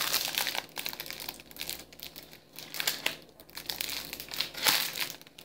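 Crinkling of a clear plastic package being handled and squeezed, coming and going unevenly, loudest right at the start and again near the end.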